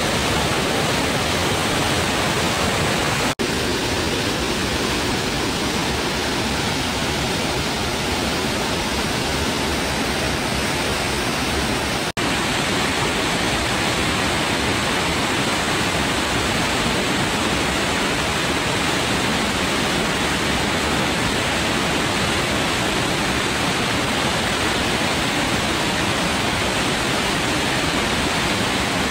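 Rushing stream water running over rocks in small rapids, a steady, even rush. It cuts out for an instant twice, about three seconds in and about twelve seconds in.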